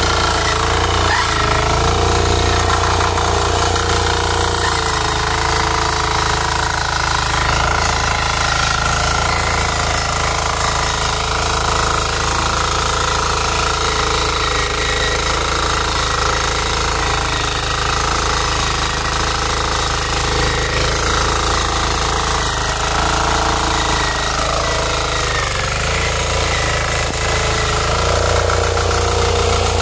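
Engine of a KisanKraft 350D mini power tiller running steadily under load as its rotary tines churn through soil, with brief dips in engine pitch about a second in and again near the end.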